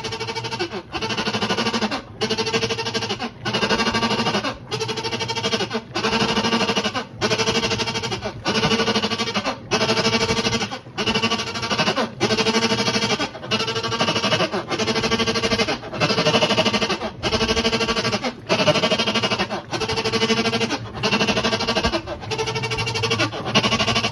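Kenmore washer running with a loud, pitched grinding groan that comes in even strokes a little over a second long, each cut by a brief break. The uploader traces the noise to teeth grinding on the pulley.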